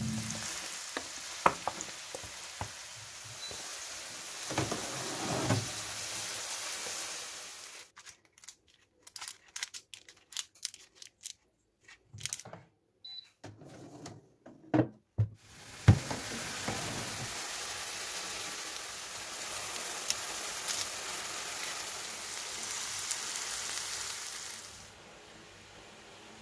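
Sliced onions and green onions sizzling in oil in a frying pan on high heat, with sharp clacks of a utensil stirring them. In the middle it goes nearly quiet for several seconds, broken by scattered clicks and knocks from a metal tray being handled in an air fryer oven, then a steady hiss returns for several seconds.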